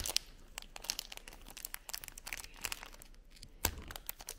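Thin clear plastic film crinkling and crackling as it is picked and peeled off a 2x2 speed cube, with one sharper click near the end.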